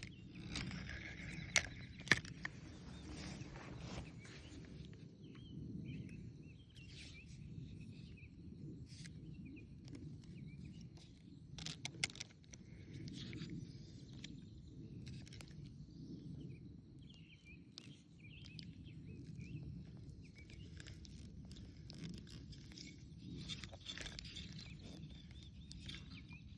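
Faint outdoor ambience with birds chirping here and there over a steady low background hiss. A few sharp clicks stand out, two close together about two seconds in and another around twelve seconds.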